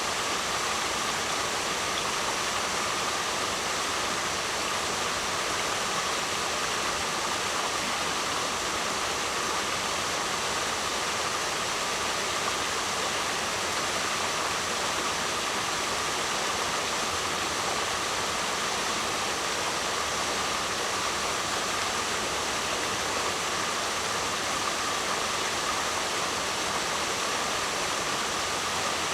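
Waterfall: a steady rush of falling water, even and unbroken, weighted toward the hissy upper range.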